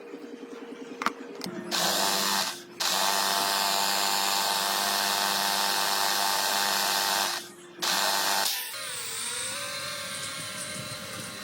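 A small high-speed electric motor runs steadily with a loud whirring hiss. It cuts out briefly twice and stops about three quarters of the way through.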